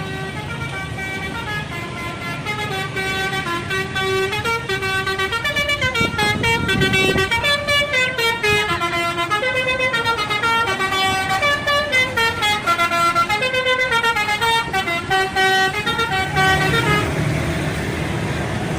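Indonesian bus 'telolet' horn, a bank of tuned air trumpets, playing a quick stepping melody with several notes sounding together over the rumble of the bus. The tune starts about two seconds in and stops near the end, leaving only the engine and road noise.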